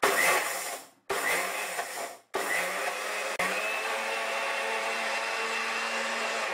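Electric mixer grinder with a steel jar grinding dry aloo bhujia with green chilli and ginger to a coarse mix. It runs in two short pulses of about a second each, then runs steadily for about four seconds.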